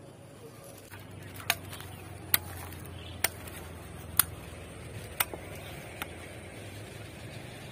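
A curved sickle blade chopping into a coconut held in the hand: six sharp strikes, roughly one a second.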